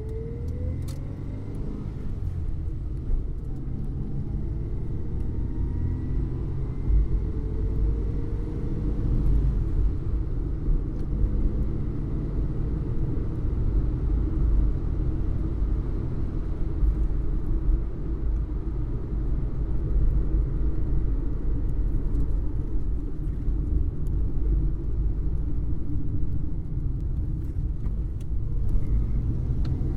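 Ford Fiesta driving: the engine note rises as the car accelerates over the first few seconds, then settles into a steady low rumble of engine and road noise. The engine note starts to climb again near the end.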